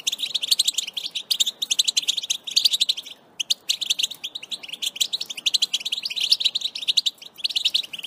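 European goldfinch singing: a fast, continuous run of high twittering chirps, with a brief pause about three seconds in.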